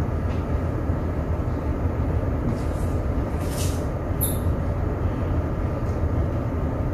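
Steady low rumble of a ship under way, heard inside its wheelhouse.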